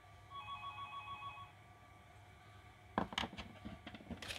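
A telephone rings briefly, a fast warbling trill lasting about a second. From about three seconds in, the plastic handles of insulated screwdrivers click and knock sharply as they are handled at their plastic case.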